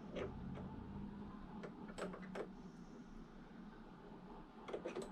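Two 10 mm wrenches clicking and tapping against the flex-cable nut as it is tightened: a few faint, scattered metallic clicks, several together near the end.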